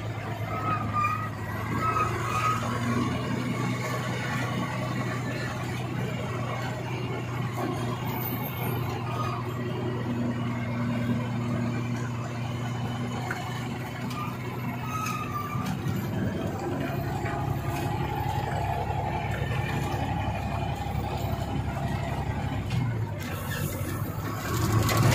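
Truck engine running steadily, heard from inside the cab as it drives down a hill road, with a deeper drone joining about two-thirds of the way in.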